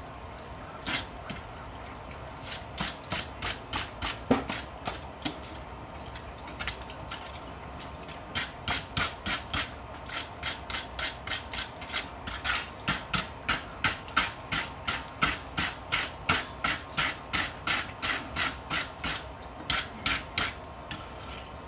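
Wire brush scrubbing a hot railroad-spike bottle opener in quick strokes, about three a second, in runs with short pauses. A single knock sounds about four seconds in.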